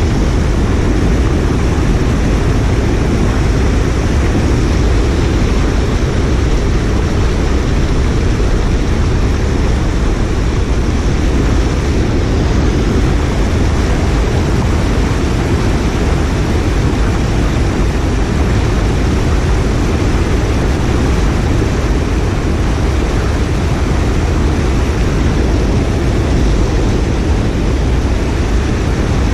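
Creek water spilling over a low dam and churning in the white water at its foot: a steady, loud, deep rushing with no let-up.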